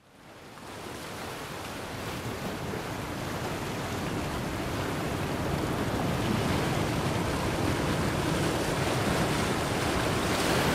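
Ocean surf rushing, a steady wash of breaking waves that fades in from silence and grows slowly louder.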